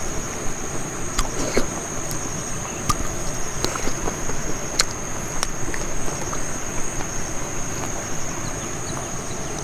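Insects buzzing steadily at a single high pitch, with scattered sharp clicks and soft rustles of a hand mixing rice on a banana leaf and of eating.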